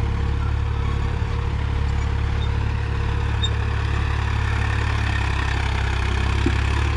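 Swaraj 963 FE tractor's three-cylinder diesel engine running steadily at low revs, below 1500 RPM, while pulling an 18-disc harrow.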